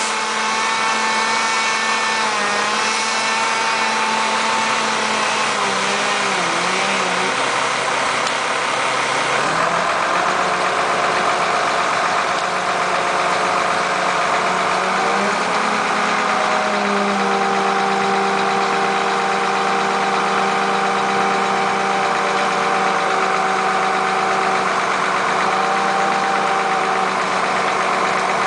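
An engine running steadily, its speed shifting a few times: a dip about six seconds in, a change about a third of the way through and another about halfway.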